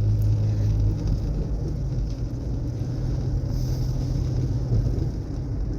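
Steady low hum and rumble of a car's engine and road noise, heard from inside the moving car.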